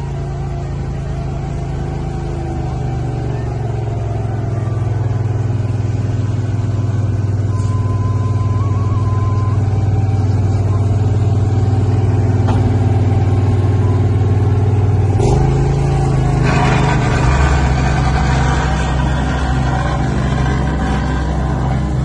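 Asphalt paving machinery running: the diesel engines of a dump truck, asphalt paver and roller, with a plate compactor, make a steady, loud engine hum. About fifteen seconds in the engine note shifts, and a second and a half later a harsher, louder sound joins it.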